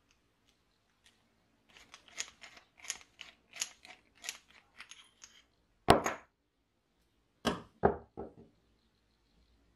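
Steel rod scraping and clicking inside the rusty steel pump tube of a vintage petrol blowtorch, about a dozen quick strokes. Then comes one sharp metal knock, the loudest sound. Near the end there are three knocks on the wooden bench, each quieter than the last, as a small fitting comes out of the tube.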